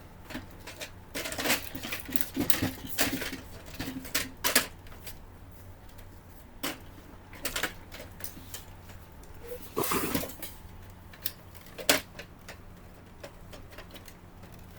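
Irregular plastic clicks and knocks from an HP LaserJet printer being handled and its paper tray being slid back in, with the sharpest knocks about four seconds in and near the end.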